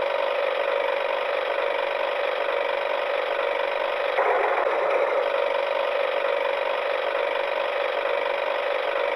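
A small motor driving gears runs with a steady whir, its pitch holding even, with a slight rise in level about four seconds in.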